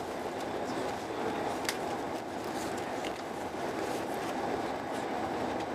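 Steady running noise of a Eurostar Italia passenger train in motion, heard inside the passenger car, with a few faint clicks.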